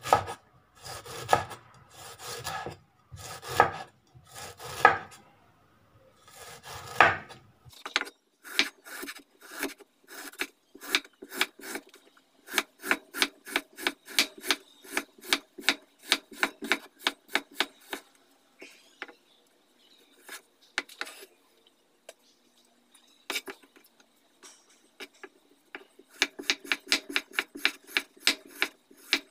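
Kitchen knife slicing fresh ginger root thinly on a wooden cutting board. Slow single cuts about a second apart at first, then a quick even run of knife taps on the board, about four a second, that thins out for a while and picks up again near the end.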